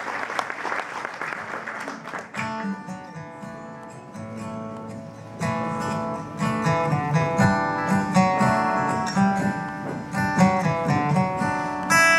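Audience applause dying away over the first two seconds, then a solo acoustic guitar starts the song's intro with picked notes, filling out from about five seconds in.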